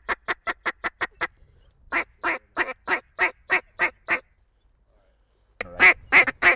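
Hunter's mallard duck call blown in evenly spaced quacks: a quick run of about six a second, then a slower series of about nine. About a second of silence follows, then a louder, faster chatter of calling near the end, to bring circling ducks in to the decoys.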